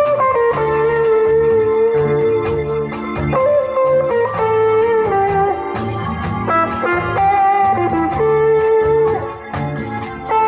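Live band playing: electric guitar and bass guitar over a drum kit keeping a steady cymbal beat, with long held keyboard notes.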